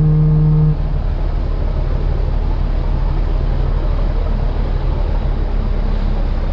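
Boat engine running steadily with water rushing past the hull. A deep, steady horn blast cuts off about a second in.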